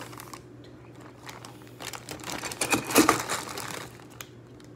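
Dry dog kibble being scooped from a crinkly plastic food bag: the bag rustles and crinkles, with a louder rush of kibble about three seconds in.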